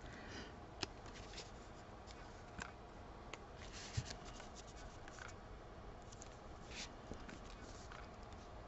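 Faint rustling and light taps of paper being handled and pressed down onto a card, with a few short sliding swishes of paper.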